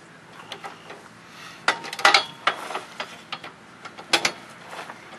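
Hand ratchet clicking in short, irregular runs, with sharp metal clinks, as the hitch's mounting bolts are tightened. The loudest runs come about two seconds in and again about four seconds in.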